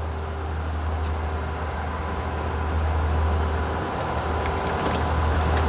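Steady low drone of equipment cooling fans and air handling, with a few faint light clicks in the second half as small plastic fan parts are handled.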